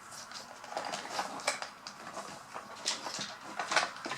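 Small plastic toy pieces and packaging being handled: irregular light clicks, taps and rustles.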